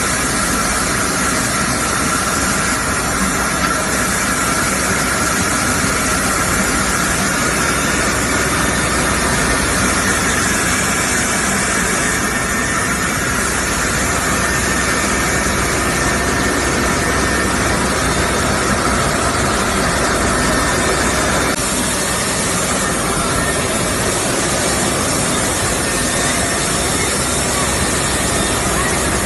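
Medical blister-pack aluminium recycling machine running: steady, loud machinery noise from the crushing and separating line, with a faint thin whine over it that changes about two-thirds of the way through.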